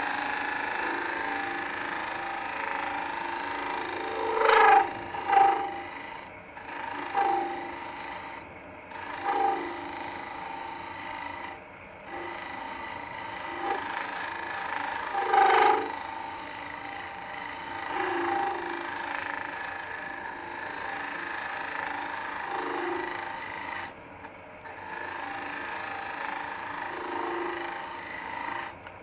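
Wood lathe running with a steady hum while a Robert Sorby ring tool hollows the inside of an end grain bowl. The cut swells into louder bursts of shaving every few seconds, loudest about four and fifteen seconds in.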